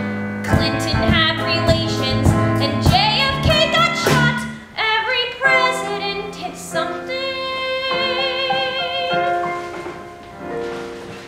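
Live musical theatre number: singing with instrumental accompaniment, with sharp percussive accents through the first few seconds and long notes sung with vibrato later on.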